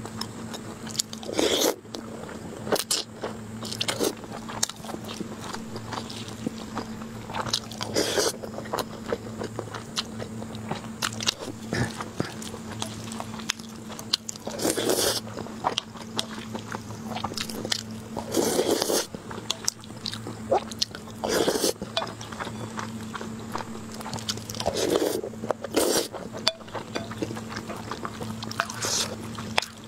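Close-miked eating of braised pork belly with glass noodles and rice: wet chewing and slurping, with a wooden spoon clicking and scraping against a porcelain bowl. About six louder slurps a second or so long stand out among many small clicks.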